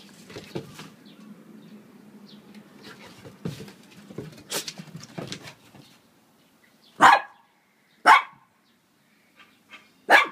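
Dog barking: three short, loud barks in the second half, after several seconds of quieter scattered knocks and scuffles as the dog and a rabbit play.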